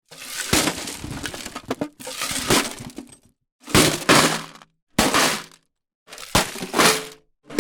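Ice cubes rattling and clinking in an ice bucket, as a string of about five short sound-effect takes with sharp clicks. Each take lasts a second or two, and dead silence falls between them.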